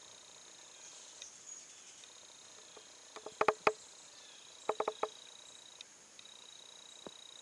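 White-tailed deer chewing an apple: two quick runs of sharp, loud crunches, a second or so apart, over a steady high buzz of insects.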